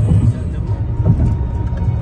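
Background music over the steady low rumble of a car driving, heard from inside the cabin.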